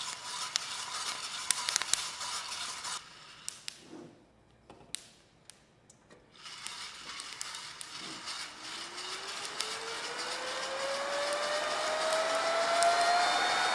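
Hand-cranked drum coffee roaster turning over its burner, the beans rattling with many sharp clicks. After a short near-quiet pause with a few light knocks, the electric fan of a KAKA-F001 coffee bean cooler starts, its whine rising steadily in pitch and loudness as it spins up.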